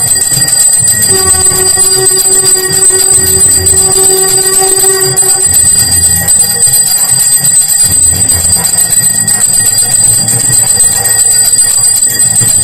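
Temple aarti bells clanging continuously with a steady low drum beat underneath. A long, steady held note with overtones sounds over them for about four seconds in the first half.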